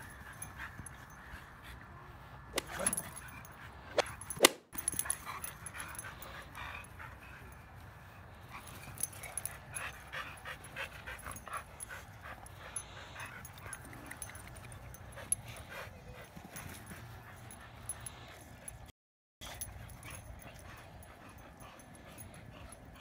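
Dogs play-fighting, whimpering and yipping with a few barks. The loudest, sharpest sounds come a few seconds in.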